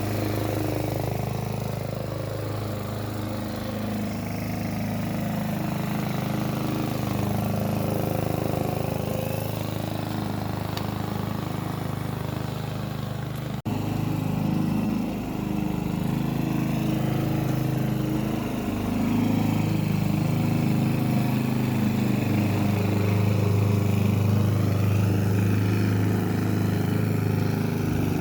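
Hyundai HY145V petrol lawn mower engine running steadily, its pitch dipping briefly a few times, with a short dropout about halfway through.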